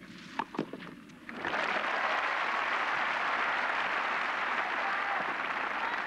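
Two sharp racket-on-ball hits in a net exchange, then a stadium crowd breaks into steady applause about a second and a half in, applauding the won point.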